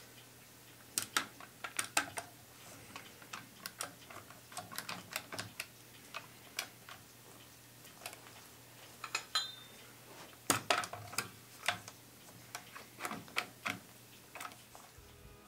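Clamps and wooden clock parts being handled during a glue-up, making irregular light clicks and knocks, a few louder than the rest, at no steady rhythm.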